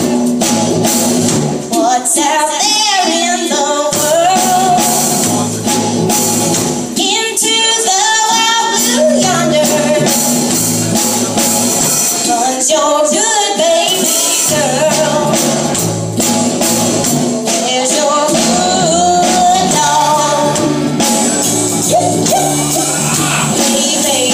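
Live band playing a song: a woman singing over electric guitars and a drum kit with cymbals.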